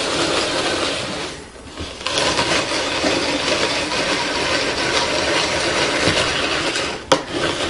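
Chef's Star manual hand-crank single-auger juicer crushing carrots as the crank turns and the plunger pushes them into the auger: a steady crunching, rasping grind. It lets up briefly about a second and a half in, and there is a sharp click near the end.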